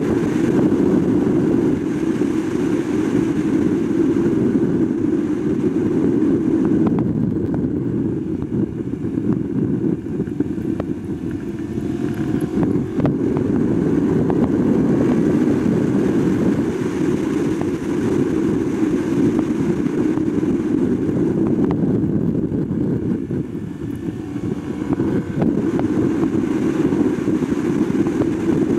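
Wind rushing over an onboard camera on a 2021 Yamaha R1 sportbike at speed, with the bike's crossplane inline-four engine running underneath. The noise dips briefly twice.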